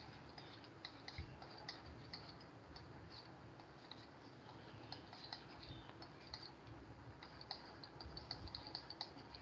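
Faint, irregular light ticks of a stylus tapping and stroking across a tablet screen as handwriting is written, busier near the end.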